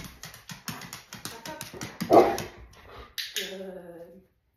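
Dog's nails clicking on a hard laminate floor as it backs up, in a quick run of sharp ticks. The loudest sound is a short loud burst about two seconds in, and a held low pitched sound follows near the end.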